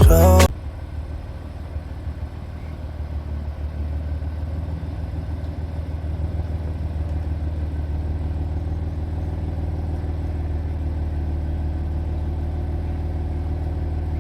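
Music cuts off about half a second in, leaving a BMW M4's twin-turbo inline-six engine idling steadily, its low note swelling slightly over the first few seconds and then holding.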